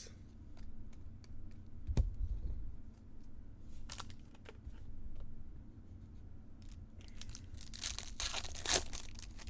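Foil trading-card pack wrapper being torn open, a burst of tearing near the end. Light clicks of cards being handled run throughout, with a single thump about two seconds in.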